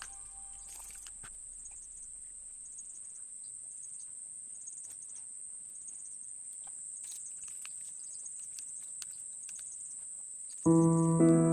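A steady high-pitched whine with faint scattered ticks, then piano background music comes in loudly near the end.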